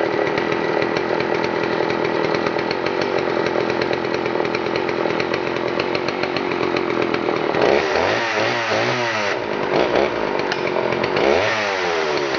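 Sachs Dolmar 114 chainsaw, a 51 cc two-stroke, running at a steady speed, then revved up and down several times from about eight seconds in.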